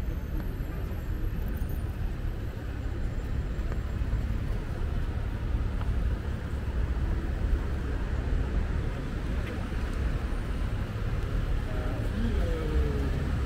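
Steady city street traffic noise, a continuous low rumble of cars and motorbikes, with voices of passers-by coming in near the end.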